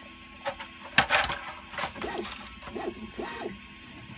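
Thin-walled 3D-printed PLA wing sections being handled and set down on a cutting mat: a sharp plastic clack about a second in, then light scraping, and three short squeaks that rise and fall in the second half.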